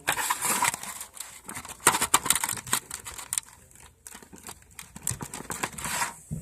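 Slime being mixed and worked by hand, giving rapid irregular sticky clicks and crackling pops, with a short lull about two-thirds of the way through.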